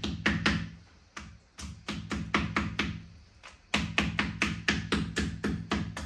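A knife chopping quickly against a cutting board while cutting up raw chicken: rapid knocks, about six a second, in three bursts with short pauses between them.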